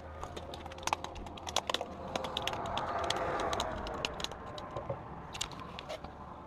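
Flounder flopping on a concrete bridge deck: a run of sharp slaps and taps, thinning out near the end.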